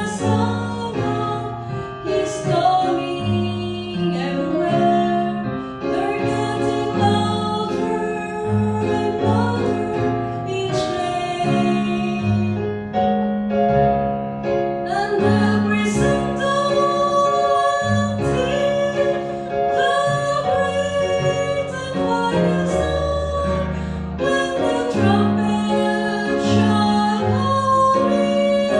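A woman singing a gospel song with keyboard accompaniment, her held notes carrying a wavering vibrato over steady bass notes.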